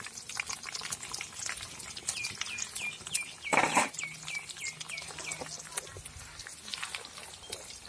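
Tempering in hot oil in a kadai crackling, a steady scatter of small pops from mustard seeds and dried chillies frying. In the middle a bird calls a run of about eight short falling chirps, with one brief louder noisy burst among them.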